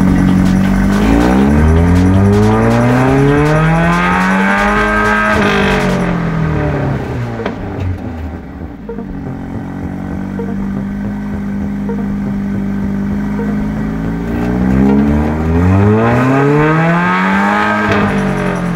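Stage 2-tuned 2015 Mercedes-AMG CLA 45's turbocharged four-cylinder engine idling and revved twice. Each rev climbs for about four seconds and then drops back to idle: once about a second in, and again near the end.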